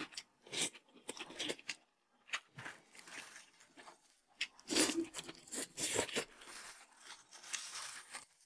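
Close-up eating sounds: irregular chewing and mouth noises as food is picked from a paper bowl with wooden chopsticks, with small clicks of the chopsticks against the bowl.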